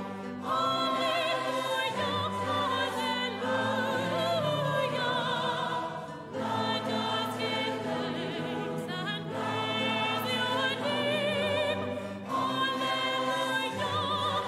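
Choir singing a slow Taizé chant in long held phrases with vibrato over sustained low notes, with short breaks between phrases about every six seconds.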